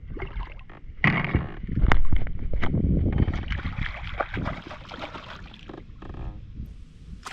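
A hooked bass splashing and thrashing at the surface beside a kayak as a landing net is swept through the water at it, with sharp splashes and knocks. The splashing is loudest about two seconds in and dies down after about three and a half seconds.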